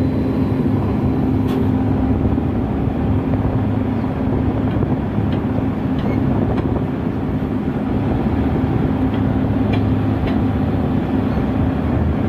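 Cargo ship's engine running steadily under way, a constant low hum with a wash of machinery noise, as the ship moves ahead away from the dock.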